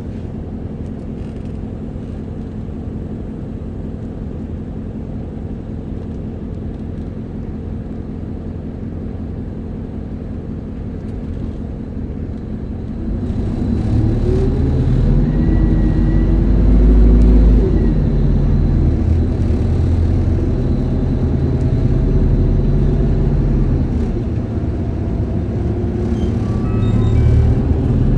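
Isuzu Erga city bus's diesel engine heard from inside the cabin. It runs steadily and low for about the first thirteen seconds, then grows much louder as the bus pulls away, its pitch rising and falling. It eases off a little and picks up again near the end.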